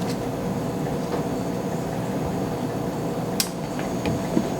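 Steady air-conditioner hum, with a few faint clicks and one sharp tap about three and a half seconds in.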